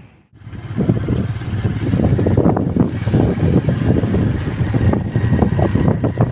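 Strong gusty wind buffeting the microphone: a loud, uneven rumble that begins about half a second in.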